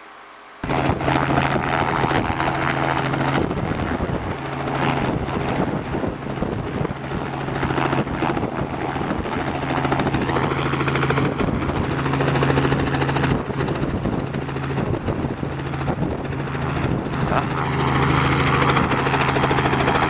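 Helicopter in flight: loud, steady rotor and engine noise with a constant low hum. It cuts in abruptly about half a second in.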